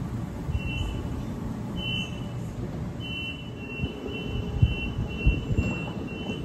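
Door warning beeps of a Sydney Trains Waratah double-deck electric train: a few spaced high beeps, then a quick run of repeated beeps from about halfway as the doors close, over the low hum of the train standing at the platform.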